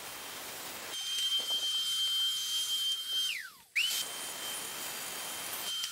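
DeWalt track saw with its dust-extraction hose: a steady hiss, then the saw's high motor whine. The whine drops quickly in pitch as the saw brakes to a stop, then spins straight back up and runs steadily again.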